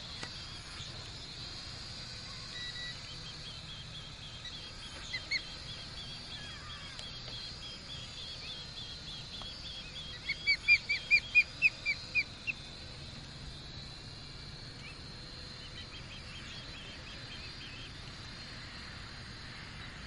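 Osprey calling: a quick run of about ten short, high, rising chirps about ten seconds in, after two fainter chirps, with more faint chirps near the end.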